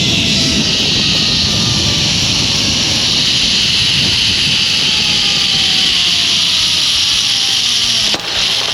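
Zip-line trolley running along the steel cable with strong wind rush on the helmet camera's microphone: a loud steady hiss with gusty buffeting and a faint whine that slowly falls in pitch. It cuts off abruptly near the end.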